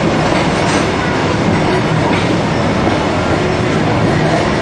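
Timber-bodied passenger carriages of a steam excursion train rolling past alongside the platform, a steady rumble of wheels on rail.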